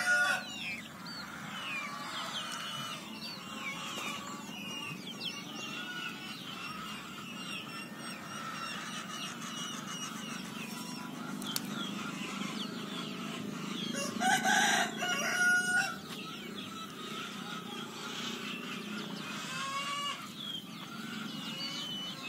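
Chickens clucking and cheeping, with a rooster crowing once, loudly, about two-thirds of the way through.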